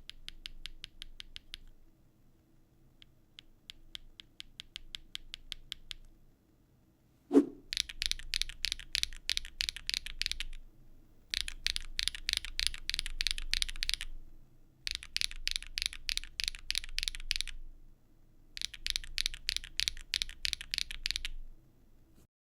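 Typing on a Neo65 CU mechanical keyboard fitted with Keygeek M3 linear switches (LY blend stem, fiberglass-filled P5 bottom housing): rapid clacky keystrokes with a solid bottom-out. Two softer runs come first, then a single loud thump, then four louder bursts of typing separated by short pauses.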